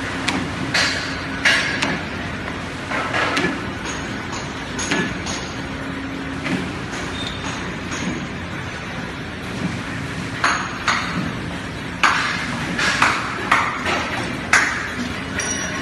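ZHJ-100 paper edge board machine running with a steady hum, broken by irregular sharp metallic clanks and clatters, a few in the first few seconds and a denser run in the last third.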